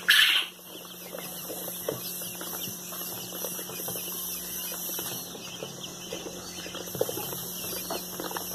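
Newly hatched Chinese painted quail and giant quail chicks scrabbling and faintly peeping in a plastic tub as a hand sorts them, with a brief loud rustle of handling at the very start. A steady low hum and hiss lie underneath.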